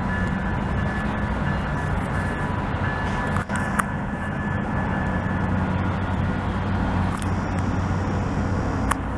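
Diesel switcher locomotive's engine running with a steady low drone as the locomotive moves slowly.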